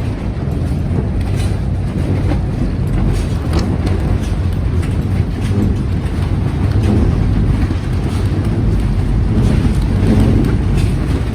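Strong gale wind buffeting the microphone with a loud, steady low rumble, with scattered faint clicks and knocks, typical of a plastic greenhouse's film and frame rattling in the gusts.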